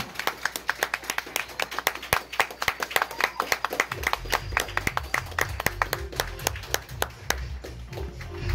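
Small audience clapping and applauding; the claps thin out near the end. About halfway through, a pulsing bass beat from background music comes in under the clapping.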